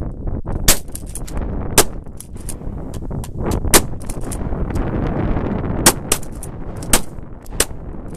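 Several shotguns firing in quick, irregular succession: about six loud shots, with many fainter shots between them, over a steady low rumble.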